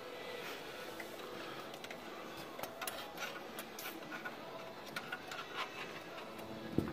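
Faint metallic clicks and scraping as hands move the shift rails and gears inside an open tractor transmission case, with a sharper knock near the end.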